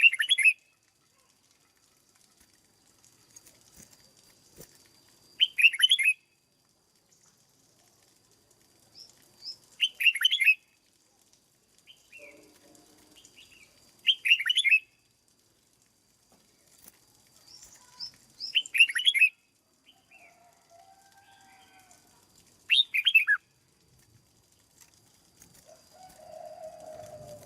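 Red-whiskered bulbul giving short, loud, high-pitched song phrases, six of them about every four seconds. A softer, lower call comes in near the end.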